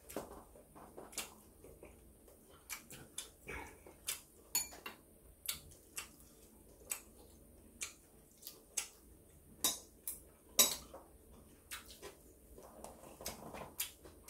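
Chopsticks and a fork clicking and tapping on ceramic bowls and plates while eating, in irregular single clinks, with one sharper clink about ten seconds in.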